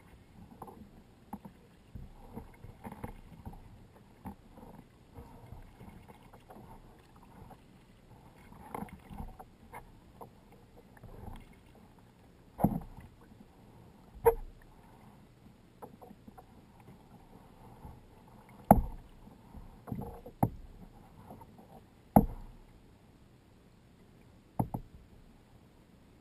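Kayak being paddled: paddle blades dipping and splashing in the water. In the second half come about six sharp knocks on the kayak's plastic hull, a few seconds apart, which are the loudest sounds.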